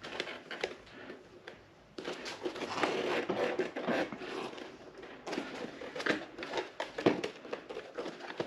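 Handling noise from working the motorcycle's seat and plastic parts loose: irregular rustling, scraping and light clicks, sparse at first and busier from about two seconds in.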